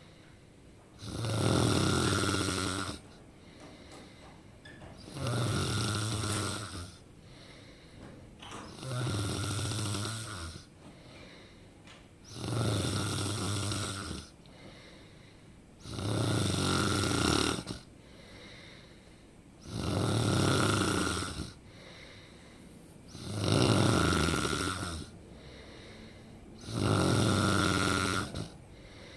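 A person snoring in a steady rhythm: eight long, loud snores, one about every three and a half seconds, with quieter stretches between.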